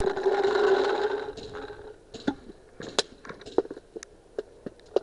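A loud held tone for the first second and a half. It is followed by irregular sharp cracks of paintball fire, about eight in three seconds, the loudest about three seconds in.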